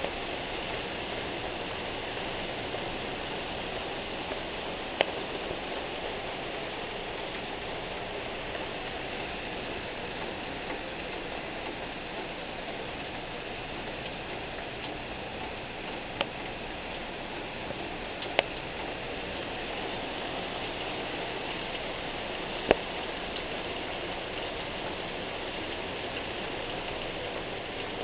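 Heavy rain pouring steadily onto broad leaves and a corrugated metal fence, a constant even hiss. Four sharp ticks stand out above it: the first about five seconds in, two more in the middle, and the loudest near the end.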